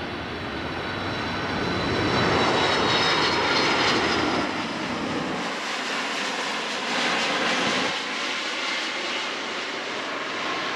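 McDonnell Douglas MD-11 freighter on final approach passing low overhead, its three turbofan jet engines giving a loud rush with a high, slightly falling whine. The noise peaks a couple of seconds in, then the deep rumble drops away about halfway through and the sound eases as the jet moves off.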